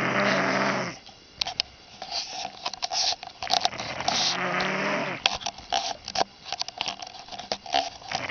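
A drunk man snoring in his sleep: one snore fading out about a second in and another about midway, with breathing between and scattered sharp clicks.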